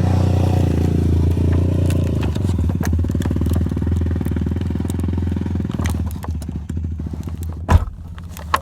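A motor engine running steadily with a low, even hum that dies down about six seconds in, followed by a sharp thump and a smaller click near the end.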